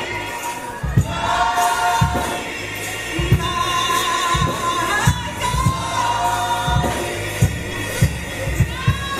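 Gospel choir singing long held notes over a band with a steady beat.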